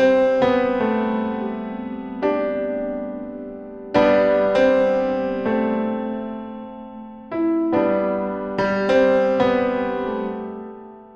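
Slow piano music: chords struck every second or two and left to ring and fade, dying away near the end.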